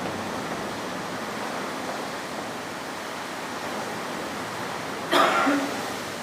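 A steady rush of storm noise, wind and heavy rain, with a short cough-like vocal sound about five seconds in.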